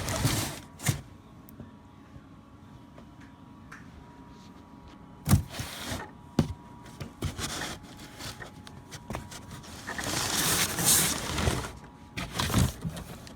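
Cardboard box and packaging being handled as a large RC truck is worked out of it: scraping and rustling with a few sharp knocks, and a longer sliding scrape about ten seconds in.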